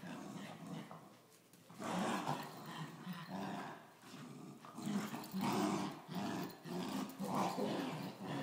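Small Coton de Tulear dogs growling in play while tugging on a toy, a string of short rasping growls. The growling is quieter in the first second or so, then comes in repeated bursts.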